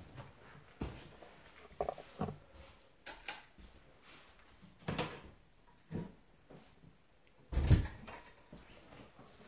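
Scattered light knocks and bumps, about one a second, with one heavier, deeper thump about three-quarters of the way through.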